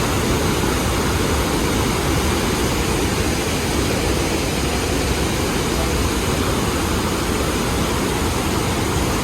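Waterfall: a loud, steady rush of falling water, even throughout.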